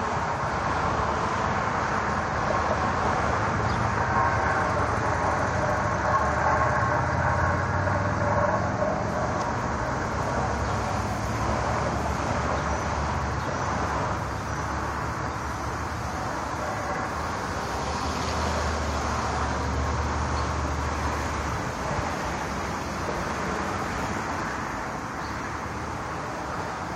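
Strange, unexplained noise from the sky: a steady drone of several held tones over a low rumble, going on without a break.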